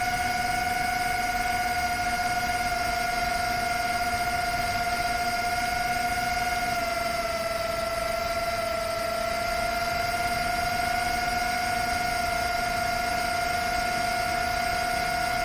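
A 6S Rekon 5 FPV quadcopter's brushless motors and propellers whining steadily in cruise, heard from the onboard camera over a rush of air noise. The whine drops slightly in pitch about seven seconds in.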